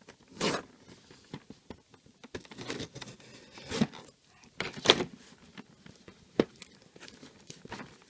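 Packaging being handled and opened by hand: irregular crinkling and tearing with several sharp knocks, the loudest about half a second in, near the middle and a little after.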